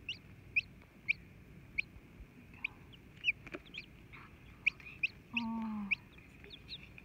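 Newly hatching Silkie chick peeping from the cracked egg: a dozen or so short, high, rising peeps at irregular intervals. About five seconds in comes a single low, slightly falling cluck of about half a second from the brooding Silkie hen.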